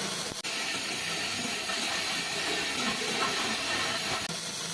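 Shielded metal arc (stick) welding arc crackling and hissing steadily. There is a brief drop-out about half a second in.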